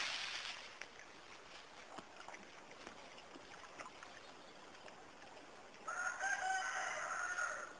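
A rooster crows once, starting about six seconds in and lasting nearly two seconds before it cuts off. Earlier, scuffling in dry leaves from the fighting birds fades out within the first second.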